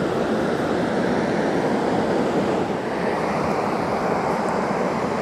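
Ocean surf washing on the beach, a steady rush of noise.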